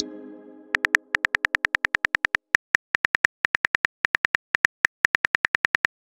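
A synthetic message chime rings and fades over the first second. Then come runs of rapid, evenly spaced phone-keyboard typing clicks, about ten a second, with short pauses between runs: the typing sound effect of a text-message story.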